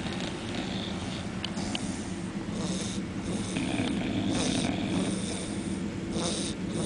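A sleeping pet snoring, with a noisy breath roughly every two seconds over a steady low rumble.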